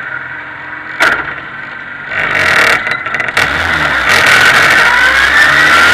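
Formula 2000 race car engine heard onboard, accelerating with its pitch rising and climbing again after shifts from about two seconds in, after a brief loud burst about a second in.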